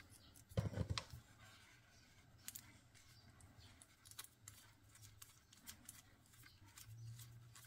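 Faint small metallic clicks and scraping of a precision craft knife's knurled metal collet being screwed back onto its handle to lock the blade in, after a brief handling bump about half a second in.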